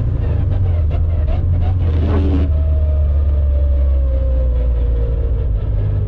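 Mitsubishi Lancer Evolution's turbocharged four-cylinder heard from inside the cabin, slowing down on a snowy road: a steady low engine drone with a brief louder burst about two seconds in, then a whine that slowly falls in pitch as the car loses speed.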